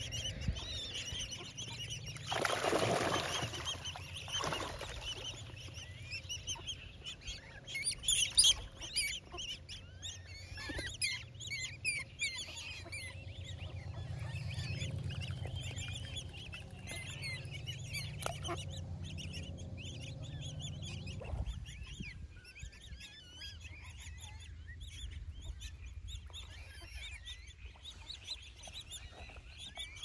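Ducks and coots calling on a pond. Small high chirps run throughout, and the loudest sounds come about two to four seconds in and again about eight seconds in.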